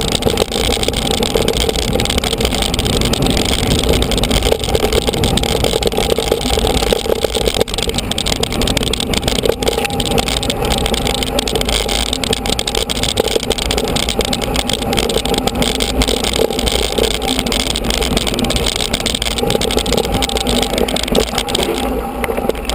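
Wind rushing over a bike-mounted action camera's microphone, with rumble and rattling from mountain bike tyres rolling fast over a rough dirt track. It eases near the end as the bike reaches smoother ground.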